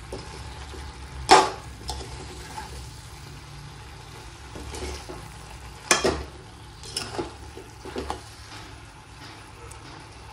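Vegetables cooking in a pan on a gas stove, with a steady sizzle. A few sharp metal clinks of utensils against the pan break in: the loudest about a second in, then several more between six and eight seconds in.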